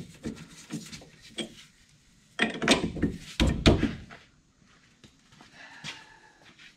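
Heavy thunks and knocks of metal parts being forced together as a leaf spring eye is worked into its rear shackle, in two clusters about a second apart midway through, with quieter scraping around them.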